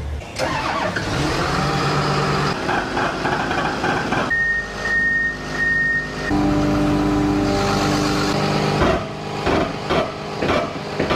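Diesel engine of a Komatsu D61PXi crawler dozer running steadily. About four seconds in come three short high-pitched beeps, then a steady lower tone that breaks off a couple of times.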